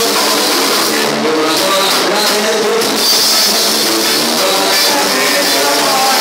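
A live band playing a xote, loud and steady, with an electric bass up front and drums behind it.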